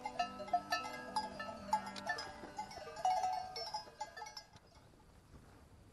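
Cowbells on grazing cows clanking irregularly, several bells overlapping. They fade away after about four and a half seconds.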